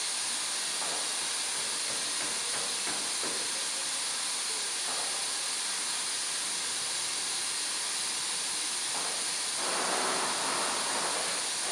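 Manual counter-pressure beer bottle filler hissing steadily as beer and gas flow into two bottles, with a louder rush of hiss about nine seconds in, after a hand goes to the filler's buttons.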